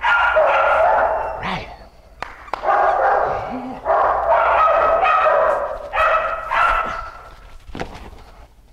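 A dog making a series of long, drawn-out cries during a tug game, each lasting about a second. A few short knocks follow near the end.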